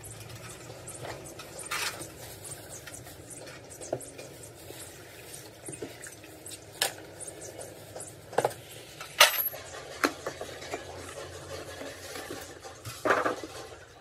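Metal tools and truck differential parts clinking and knocking at irregular intervals. The sharpest clink rings briefly about two-thirds of the way in.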